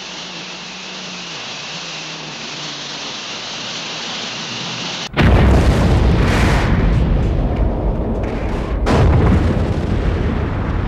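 A steady hiss slowly grows louder. About five seconds in, a sudden, loud explosion cuts in: a film sound effect of the Earth being blown apart, a long rumbling blast that swells again near the end.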